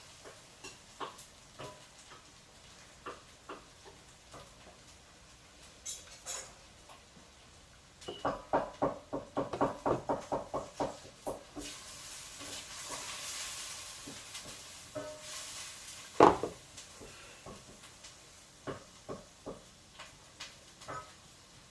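Cooking and kitchen handling sounds: scattered clinks of utensils and pans, a run of quick taps about a third of the way in, a few seconds of hiss, and one sharp knock a little past the middle, which is the loudest sound.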